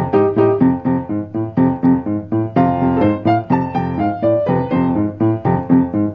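Background piano music: a quick melody of evenly spaced notes, about five a second, over chords.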